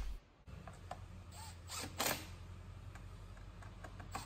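Faint clicks and light knocks of a cordless ratchet working on the fasteners of a plastic engine cover, over a low steady hum.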